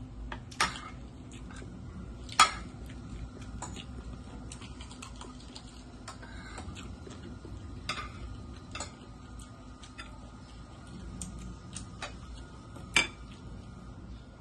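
Metal spoons clinking against plates and bowls, a handful of sharp clinks scattered over a low steady hum, the loudest about two and a half seconds in.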